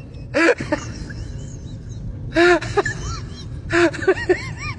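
An animal's short, high, pitch-arching calls in three bursts, about half a second in, midway and near the end.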